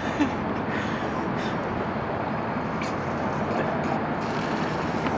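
Steady rushing background noise with no single clear source, broken by a few faint ticks about three to four seconds in.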